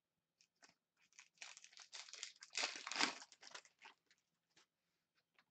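The wrapper of an Upper Deck Synergy hockey card pack crinkling and tearing as it is ripped open by hand. A crackly rustle of about two and a half seconds, loudest about three seconds in, with a few light clicks before and after.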